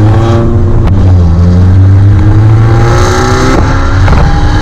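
First-generation Ford Focus engine and exhaust under acceleration. The exhaust was cut open, gutted and welded shut by a previous owner, so it sounds loud and sporty. The engine note climbs in pitch, breaking about a second in and dropping again after about three and a half seconds as the revs fall.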